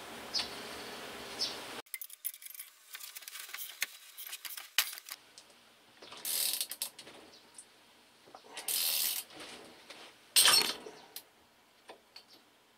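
Steel parts of a bearing puller (jaws, spacers and threaded spindle) clinking and tapping against each other and the rotary pump's housing as they are fitted, a string of light metallic clicks. There are two short rasping scrapes partway through and a sharp clank with a rasp near the end, the loudest sound.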